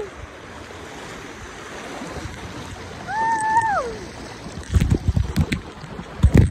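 River water rushing through a rocky rapid around an inflatable raft, with one high, held shout from a rider about three seconds in. Low, irregular thumps of wind and handling on the phone's microphone fill the last two seconds.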